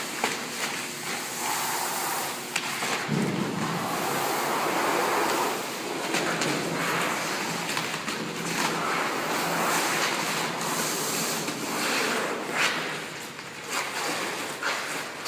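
Pre-mask application tape being peeled slowly off a large vinyl decal: a continuous tearing, crackling rustle that swells and eases over several long pulls.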